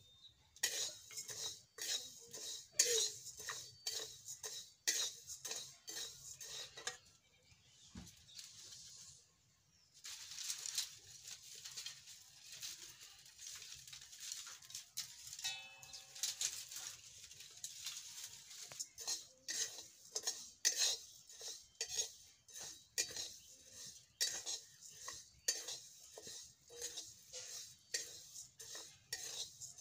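Flat steel spatula scraping and stirring whole spices dry-roasting in a metal kadhai, in quick rasping strokes, with a pause of about two seconds near a third of the way in.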